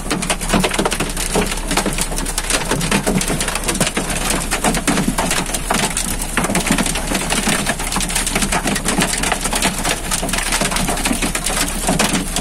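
Hail drumming on a vehicle's roof and windscreen, heard from inside the cab: a dense, continuous clatter of many small hits.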